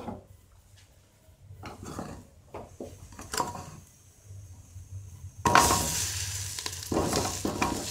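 Cauliflower florets tipped into hot spiced oil in a steel pressure cooker: a few light knocks of florets and bowl against the pot, then a little past halfway a sudden sizzle as the wet florets hit the oil.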